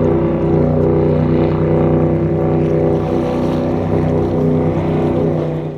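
High-performance offshore powerboat running at speed: a loud, steady engine drone that fades out at the very end.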